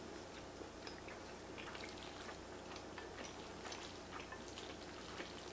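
Faint clicks and small wet rustles from wooden chopsticks lifting and stirring saucy noodles in a ceramic bowl, scattered unevenly over a low steady hiss.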